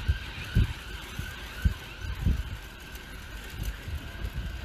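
Faint ambulance siren sounding over road traffic, with several low thuds on the phone microphone.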